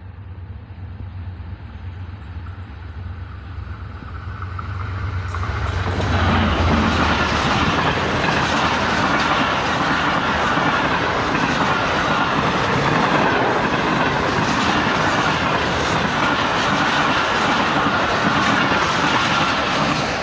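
Express passenger train passing close by at speed. For the first six seconds the diesel locomotive's low, steady engine drone grows louder as it comes in. Then the coaches go by with a loud, sustained rush of wheel-on-rail noise and clickety-clack.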